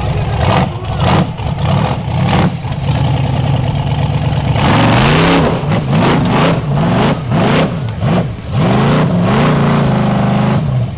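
Rock bouncer engine revving hard, its pitch rising and falling again and again as the throttle is worked on and off during a rock hill climb.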